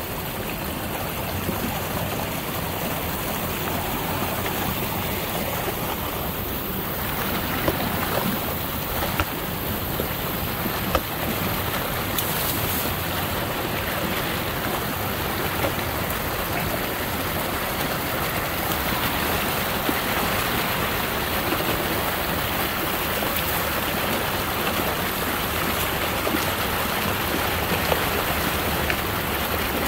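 Water gushing from a drain pipe outlet into a ditch, a steady rushing and churning. The drain is flowing freely again after a beaver clog was cleared from it.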